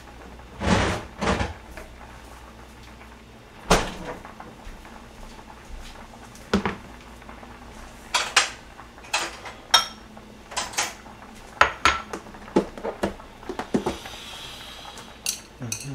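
Metal kitchen tongs clicking and clinking against a small bowl and a plastic container while kimchi is served out: scattered sharp taps, a few at first and then many in quick succession in the second half.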